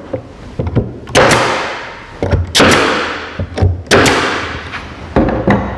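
Pneumatic 18-gauge air stapler firing staples through OSB into a wooden brace: about three loud sharp shots, each followed by a fading hiss of exhaust air, with lighter clicks and knocks as the tool is repositioned.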